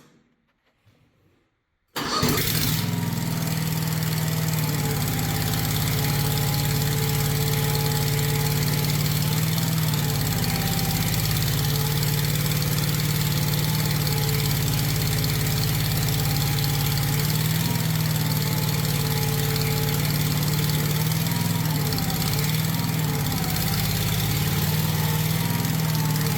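Harbor Freight small engine in a repowered Bobcat 310 mini skid steer starting up about two seconds in and then running steadily at idle, with slight rises and dips in speed, loud with no exhaust system fitted yet.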